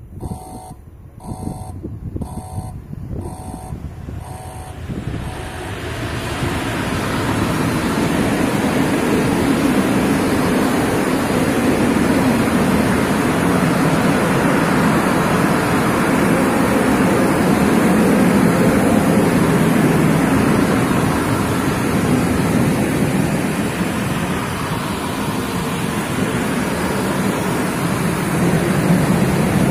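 Freight train of loaded coal wagons passing close by. The rumble and rail noise of the wagons rolling along the track builds over the first several seconds as the train arrives, then runs steady and loud. A row of short beeps fades out during the first few seconds.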